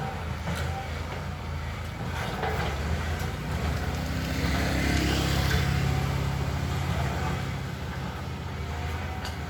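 Caterpillar excavator's diesel engine running steadily, rising in pitch and getting louder around the middle, then settling back.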